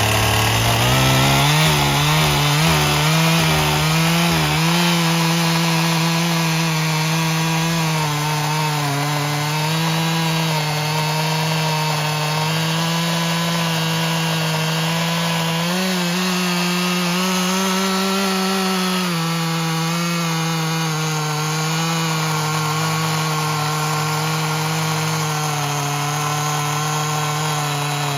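Stihl MS261 C two-stroke chainsaw revving up and running at full throttle while crosscutting a hardwood cherry log. The engine pitch holds steady under load, rises briefly and then sags a little about two-thirds of the way in.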